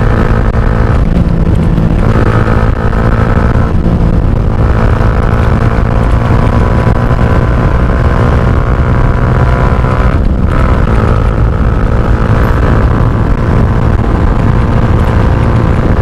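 Yamaha R15 V2's single-cylinder four-stroke engine pulling hard under acceleration at highway speed, heard from the rider's seat, with heavy wind rumble on the microphone. Its note breaks briefly three times, about a second in, at about four seconds and at about ten seconds, as the gears are shifted up.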